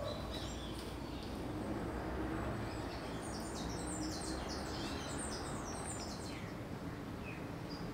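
Faint birds chirping over a low, steady background hum, with a cluster of quick chirps around the middle.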